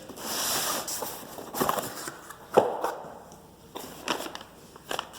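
Door hardware packaging being opened and handled: a rustle over the first second, then several sharp clicks and knocks of parts being taken out, the loudest about two and a half seconds in.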